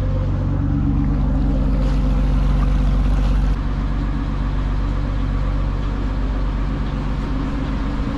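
Dutch barge's inboard diesel engine running steadily under way, its low hum constant, a little quieter from about three and a half seconds in.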